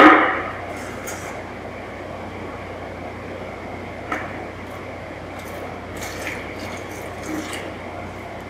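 Plastic buckets knocking together once, loudly, at the start, then quieter handling knocks and water being poured from one plastic bucket into another for mixing mortar.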